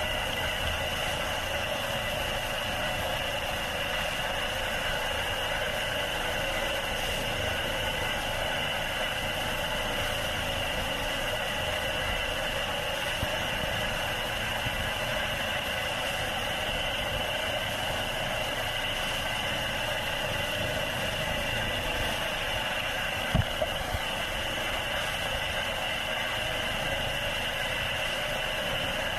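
Steady helicopter noise heard from aboard the hovering aircraft: an even rushing with a high whine that does not change. A few faint knocks come about four-fifths of the way in.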